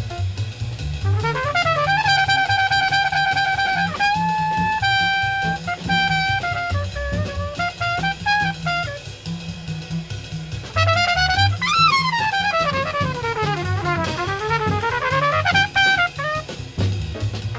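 Jazz quintet playing a medium-tempo blues: a trumpet carries a single melodic line over walking bass and drums, holding notes and then sliding down and back up in a long bend near the end.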